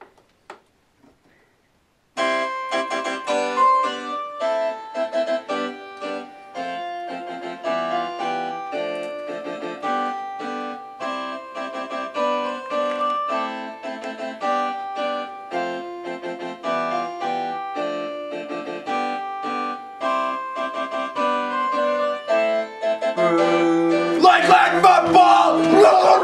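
Electronic keyboard in a harpsichord voice playing a brisk tune of many quick notes, starting about two seconds in. Near the end a louder, noisier sound comes in over it.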